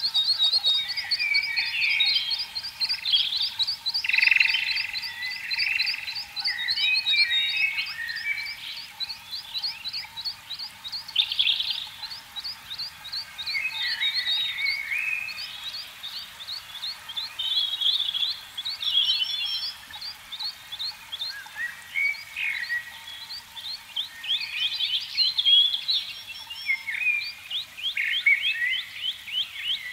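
Birds singing: a long, fast, high trill of repeated chirps, with other warbling bird calls over and under it.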